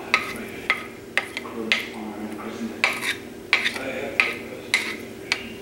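Wooden slotted spatula scraping and knocking against a plate and the rim of a pan, about twice a second, as shredded chicken is pushed off into rice, over a steady low hum.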